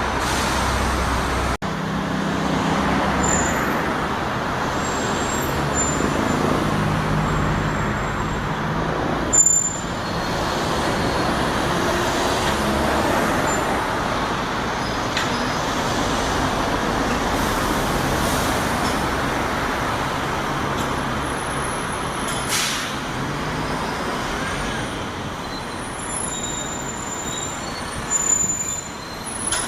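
Buses idling and pulling away, engines running over general road traffic, with a short sharp air-brake hiss about nine and a half seconds in and again near the end.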